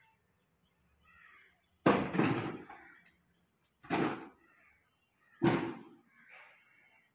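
Three loud bangs about two seconds apart, the first about two seconds in, each dying away over a fraction of a second, with fainter short sounds between them.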